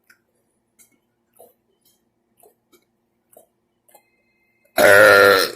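Faint scattered clicks, then about five seconds in a man's single loud burp lasting under a second.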